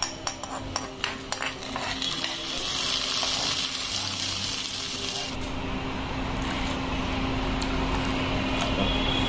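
A spoon clinks quickly against a small metal tempering pan as hot oil with mustard seeds and urad dal is tipped into a pot of gravy, then the oil sizzles and hisses as it hits the liquid. A steady low hum joins in about five seconds in.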